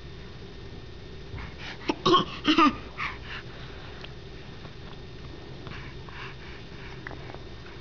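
Deliberate fake coughing: a quick run of short coughs, loudest two to three seconds in, then a few faint ones about six seconds in.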